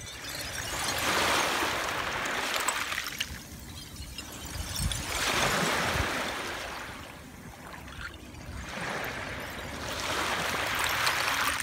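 Small waves washing up and draining back over a beach strewn with broken glass, in three swells about four seconds apart, with light clinks of glass fragments in the wash.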